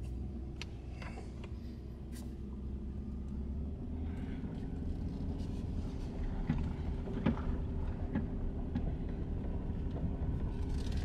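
Ford pickup truck's engine running and the truck rolling slowly off, heard inside the cab; the engine note rises and gets louder about four seconds in, with a few light knocks partway through.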